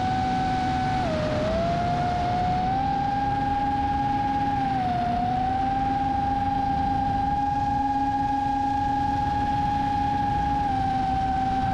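FPV quadcopter's motors and propellers whining at a steady pitch, over a rushing noise. The pitch dips briefly about a second in and again about five seconds in, and climbs slightly near the end as the throttle changes.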